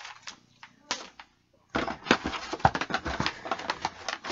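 Rustling and clicking of items and packaging being handled while digging into a box: a few light clicks, a brief break, then a dense run of sharp crinkles and taps.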